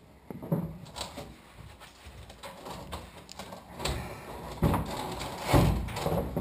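Knocking, scraping and clunking as a truck's fuel tank is worked up into place underneath the vehicle, with heavier thumps in the second half.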